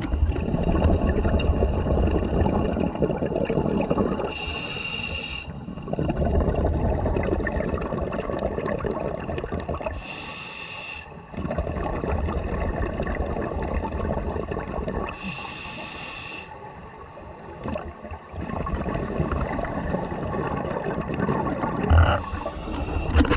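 Scuba diver breathing through a demand regulator underwater. Each breath is a short hiss of inhaled air, followed by a long bubbling gurgle as the exhaled air escapes, in slow cycles about five to six seconds apart.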